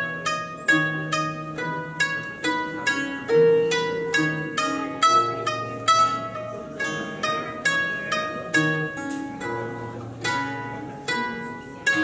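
Torban, the Ukrainian many-stringed lute, plucked by two players at once in a slow improvisation: single ringing treble notes in an even pulse, about two a second, over lower bass notes.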